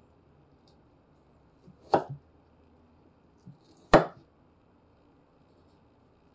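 Chef's knife slicing through onion on a wooden cutting board: two cuts about two seconds apart, each a brief crunch ending in a sharp knock of the blade on the board.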